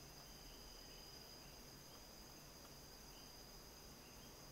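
Near silence: faint steady hiss with a thin, steady high-pitched whine.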